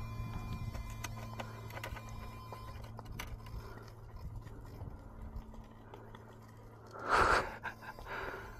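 RC rock crawler working over rock: faint ticks and scrapes over a steady low hum of background noise, with a louder short scrabble about seven seconds in and a smaller one just after.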